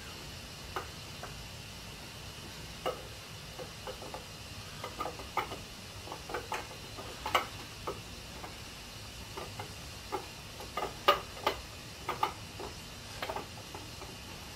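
Light, irregular clicks and taps of a steel camshaft being slid by hand into the cam bearings of a Chevy 454 big-block, metal touching metal as it goes in. The sharpest tap comes a little past the middle, over a faint steady hiss.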